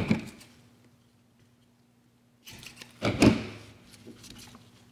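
Handling noise of neoprene foam tape and a 3D-printed plastic mask shell: a brief rustle at the start, near quiet, then a longer stretch of rustling and rubbing from about two and a half seconds in, loudest just after three seconds, as the tape is worked and pressed onto the shell.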